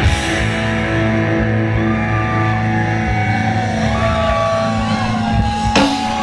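Live rock band playing through amplifiers: electric guitars and bass holding notes over drums, with a sharp hit near the end.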